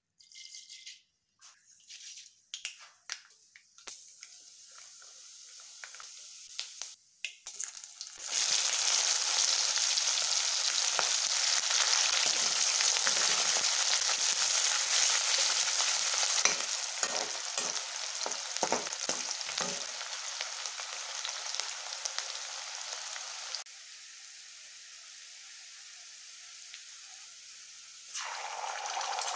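Mustard seeds crackling and popping one by one in hot oil in a wok. About eight seconds in, a loud, steady sizzle starts as chopped onions and green chillies fry, with a ladle knocking and scraping the pan as they are stirred. The sizzle drops lower for a few seconds, then grows louder again near the end.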